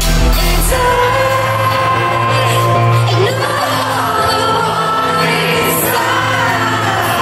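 Live pop-punk band playing at full volume through a hall PA, with a woman singing lead over it. The deepest bass drops out about a second in.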